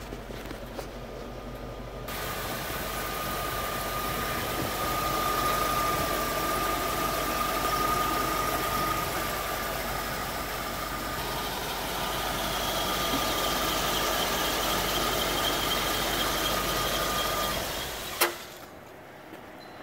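1993 Ford F700 fire truck's gasoline engine idling steadily, heard louder from the open engine bay after about two seconds, with a steady high-pitched whine over it. Near the end the engine shuts off, followed by a single sharp click.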